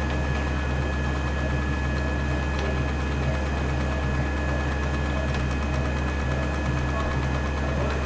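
Chocolate enrobing machine running steadily: a constant low hum from its conveyor, blower and vibrator, with a few steady higher whining tones over it.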